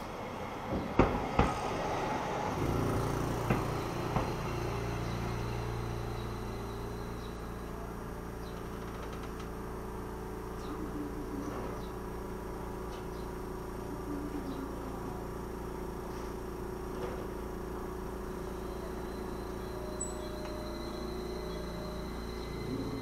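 Tram arriving at the stop: its wheels knock and clack over the rails a few times in the first couple of seconds. It then stands at the platform with a steady low hum.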